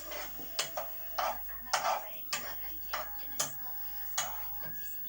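A metal spoon clinking and scraping against a dish while eating: about nine sharp clinks at an uneven pace, each with a short ring.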